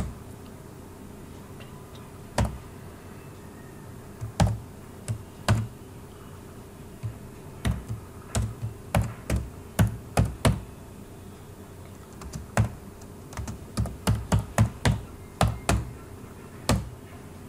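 Keys typed on a computer keyboard in irregular bursts: a few scattered single keystrokes at first, then quick runs of keys about halfway through and again near the end.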